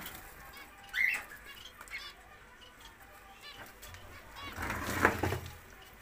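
Small cage birds chirping in an aviary: one sharp rising chirp about a second in and soft high chirps throughout, then a brief flurry of wingbeats around five seconds in.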